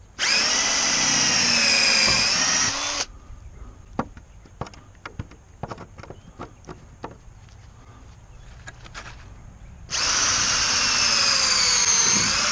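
Cordless drill driving a homemade hole saw, a steel hose fitting with teeth ground into it, into a weathered wooden fence board around a nail. It runs in two bursts of about three seconds each, a whine that wavers under load, with a few scattered light clicks in between. The cutter is dull.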